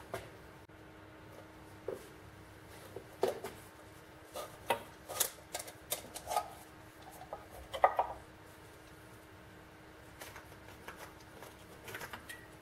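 Handling noise as an aluminium canteen cup is worked free of a felt-covered canteen's leather strap and buckle and set down on a hard surface: scattered light clicks and knocks, the loudest about eight seconds in.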